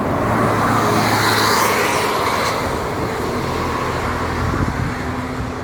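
A coach bus driving past close by: engine hum and tyre noise swell over the first couple of seconds, then ease off a little.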